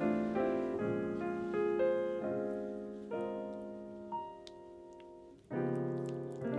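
Background piano music: soft chords struck and left to fade, with a new chord coming in about five seconds in.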